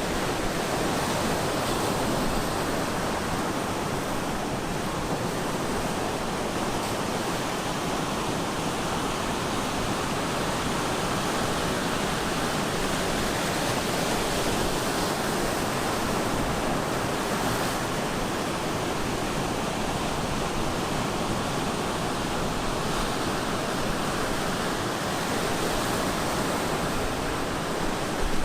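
Ocean surf breaking on the shore: a continuous, dense roar of white water, nearly steady with only slight swells in loudness.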